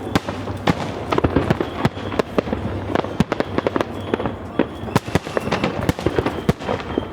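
Fireworks display with aerial shells bursting in quick, irregular succession: many sharp bangs a second over a dense crackle.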